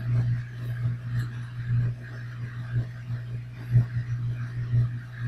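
A pen scratching and tapping on sketchbook paper in short, irregular strokes, over a steady low hum.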